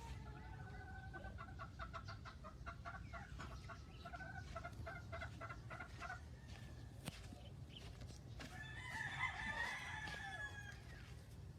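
Chickens clucking in a quick run of short repeated notes for several seconds, then a rooster crowing once about two-thirds of the way in, over a steady low rumble.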